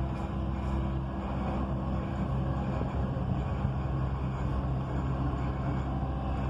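Dubai Metro train running along its elevated track, heard from inside the carriage: a steady rumble of wheels on rails with a low, even hum.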